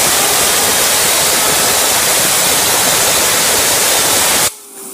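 Compressed air from an air compressor's hose blasting a fidget spinner, a loud steady hiss that cuts off suddenly near the end. The spinner's whine is then left, falling slowly in pitch as it spins down.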